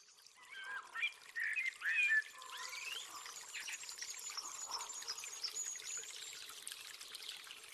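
Birds chirping and calling over the steady trickle of running water, fading in from silence. The loudest calls come in the first two seconds.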